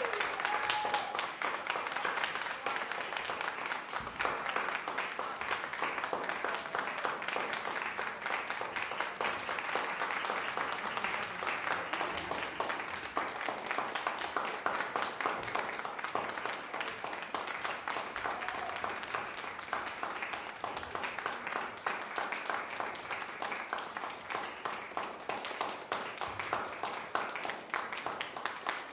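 Audience applauding: steady clapping that eases off slightly toward the end.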